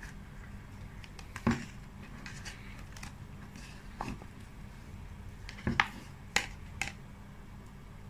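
Metal spoon clicking and scraping against a thin plastic cup of ice cream: a handful of sharp clicks, one about a second and a half in and a cluster around six seconds in, over a steady low hum.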